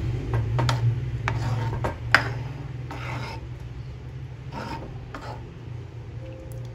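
A cooking spoon stirring thick dal fry in a pot, scraping against the pot in irregular strokes, the loudest about two seconds in, over a steady low hum.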